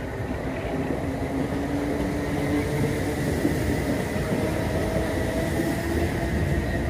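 Southern Class 377 Electrostar electric multiple unit moving slowly past on the platform road. A low rail rumble is overlaid with a few steady humming tones, and the sound grows gradually louder.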